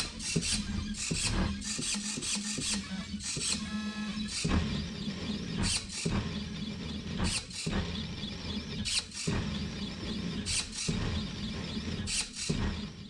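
AxiDraw V3 pen plotter drawing: its stepper motors whir with a steady low hum and a high whine that wavers in pitch as the carriage moves, with frequent short clicks as the pen is lifted and dropped. The newly replaced pen-lift servo is working again.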